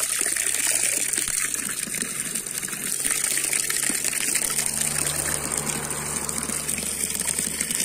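Water gushing steadily from an outdoor spout while someone drinks from the falling stream.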